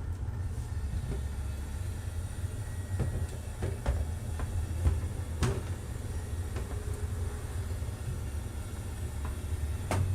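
A steady low hum with a few light knocks and clicks scattered through the middle, like small objects being handled on a workbench.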